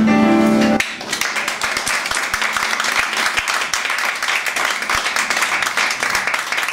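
Music stops abruptly just under a second in, and audience applause takes over, dense and steady.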